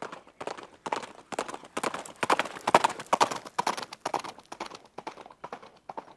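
Horse hooves clip-clopping in an even trot, about four steps a second, growing louder to a peak about three seconds in and then fading away.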